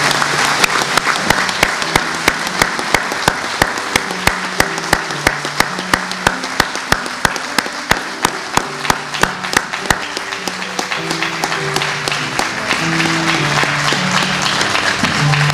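Audience applauding over music of held low notes. A steady beat of sharp taps runs at about two or three a second and stops about two-thirds of the way through.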